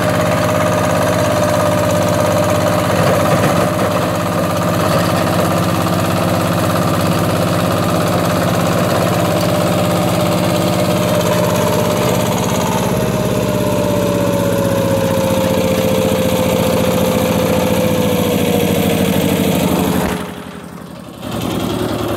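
Daedong walking tractor's single-cylinder diesel engine running under load while its rotary tiller churns soil, with a steady high whine that sinks slowly in pitch in the second half. The sound drops away suddenly about two seconds before the end.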